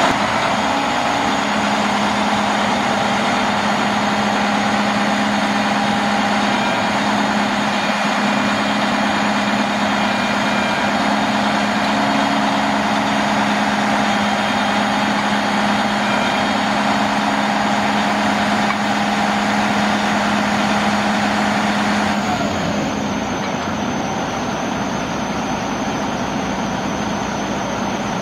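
Freightliner M2 114SD's diesel engine running steadily while the Fassi knuckleboom crane's hydraulics fold the boom, with a steady hum and whine. About three-quarters of the way through, the hum and whine drop away, leaving the engine idling.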